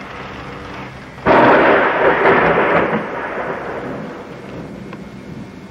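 A thunderclap from a close lightning strike: a sudden loud crack about a second in that rumbles on for a couple of seconds and then fades, over the steady noise of a rainy thunderstorm.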